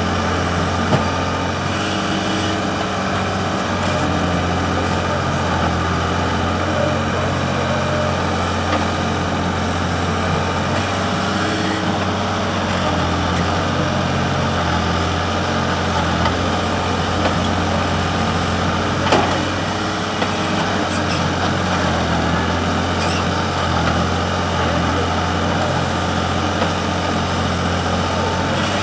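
An engine running steadily at a constant speed, with an unchanging low hum.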